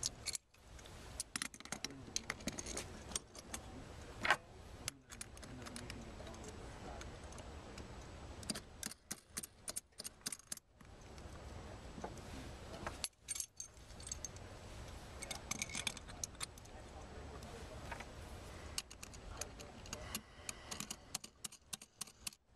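Stainless-steel sampler parts and fittings handled and fitted together by hand: scattered light metal clicks and clinks, coming in clusters.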